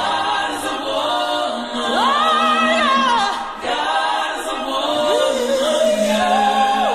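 Background music of layered singing voices holding long notes that slide up and down, with little or no percussion.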